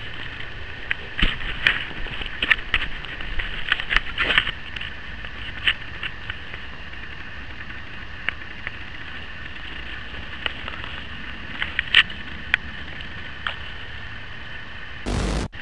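Steady outdoor hiss with about a dozen scattered sharp clicks and snaps at irregular intervals.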